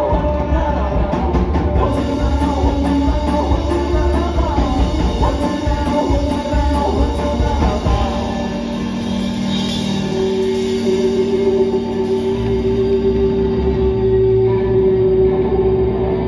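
A band playing live, with electric guitar and drums. A little past halfway the drums drop out, leaving long held notes.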